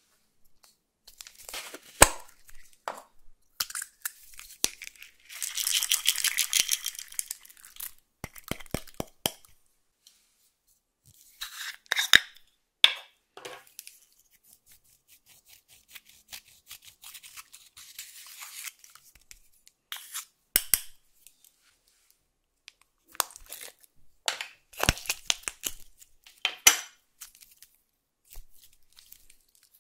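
Slime-mixing sounds in a glass dish: sharp clicks and taps of a plastic makeup pot and a small tool, a grainy pour of sprinkles about five seconds in, and the sticky crackle and tear of clear slime being worked and stretched by hand near the end.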